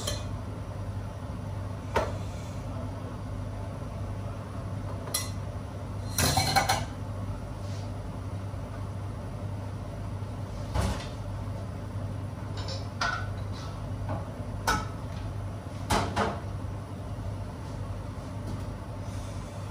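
Kitchen work noise: a steady ventilation hum with scattered knocks and clatters of metal pans and utensils, the busiest clatter about six to seven seconds in.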